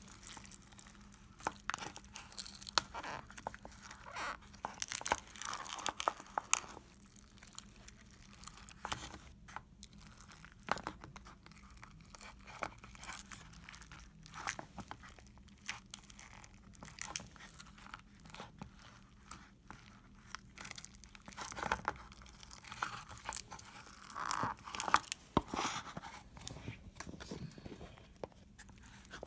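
Slime being squished and pressed by hand: a dense run of irregular sticky crackles, clicks and pops, with louder clusters now and then.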